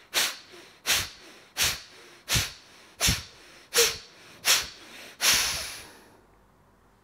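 A man doing bhastrika (bellows breath) pranayama: a rhythmic run of sharp, forceful breaths through the nose, about one every 0.7 seconds, seven in a row, with quieter breaths between. About five seconds in comes one longer, fading breath as he lets the last breath go.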